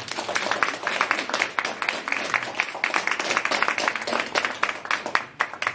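Audience applauding: dense clapping that thins out to a few scattered claps near the end.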